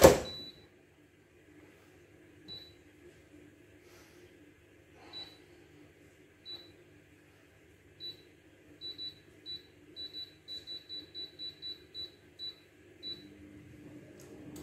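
Tesco Go Cook air fryer's touch control panel beeping at each button press while time and temperature are set: single short high beeps a second or so apart, then a quick run of beeps about three a second as the setting is stepped up. Near the end the fryer starts and its fan begins running with a low steady hum.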